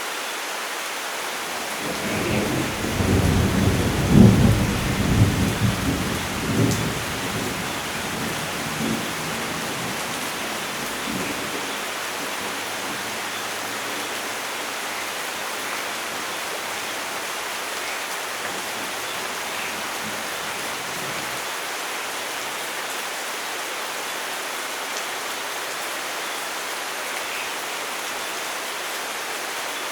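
Steady heavy rain with a thunderclap: a low rolling rumble builds about two seconds in, peaks near four seconds, then rolls away over several seconds, leaving the even hiss of rain.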